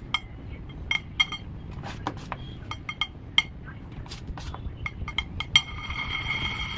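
Metal palette knife clinking and tapping against a metal cake turntable while whipped cream is spread, a dozen or so sharp ringing clicks. Near the end a steady metallic ringing sets in as the turntable spins.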